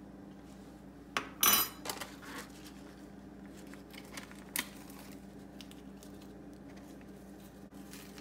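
Bowls and cutlery clinking and clacking on a stone kitchen counter as ramen is plated: a few sharp knocks about a second to two and a half seconds in, the loudest near a second and a half, and one more later. A steady low hum runs underneath.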